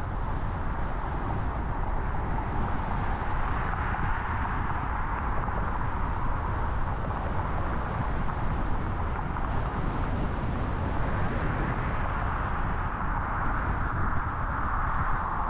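Steady road noise of a car driving: tyre hiss over a low rumble, swelling a little now and then.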